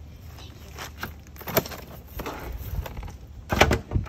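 Stiff white plastic diffuser layers inside a flat-screen TV cracking and snapping as a hammer is struck and pried into them. Scattered knocks and cracks, with the loudest cluster near the end.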